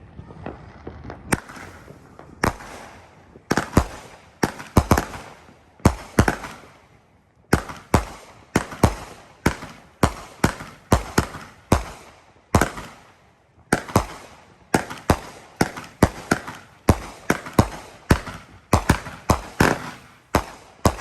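A 25-shot 200-gram consumer firework cake, Pro Fireworks' Afterlife, firing its shots one after another. Each tube goes off with a sharp bang about every half second, many followed by a crackle of bursting effects.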